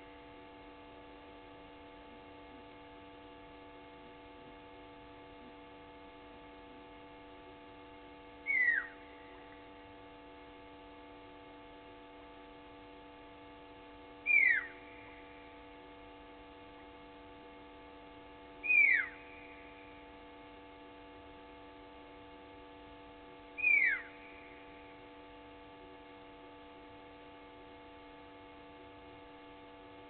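A sharp whistled animal call that falls steeply in pitch, given four times at uneven gaps of about four to six seconds, over a steady electrical hum.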